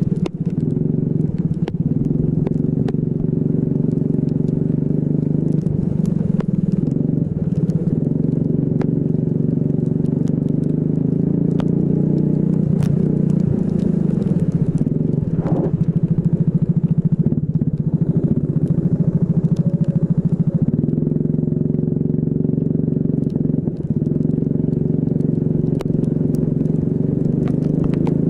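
Racing kart engine running hard around a wet track. Its pitch falls off and climbs again several times as it slows for corners and accelerates, with the longest drop about halfway through.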